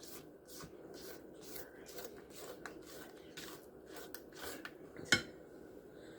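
A utensil stirring a wet mixture of sourdough starter, yeast, sugar and warm water in a mixing bowl: faint repeated scraping strokes, with one sharper clink against the bowl about five seconds in.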